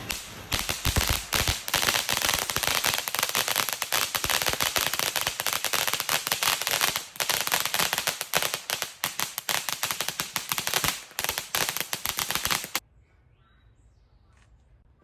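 Consumer fireworks going off in a dense, rapid string of crackling pops, many a second, which stops abruptly near the end.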